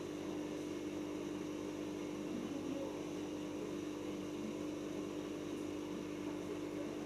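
Siemens iQ front-loading washing machine running its 400 rpm inter spin, with a steady motor hum.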